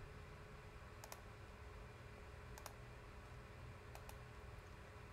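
Near silence with a few faint, isolated clicks from a desk computer, spaced a second or more apart, over a low steady room hum.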